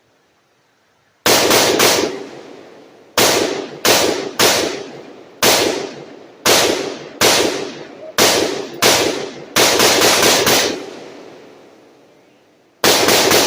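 Gunshots from firearms at target practice: after about a second of quiet, well over a dozen sharp shots in singles and quick strings, each trailing off in an echo, with a last pair near the end.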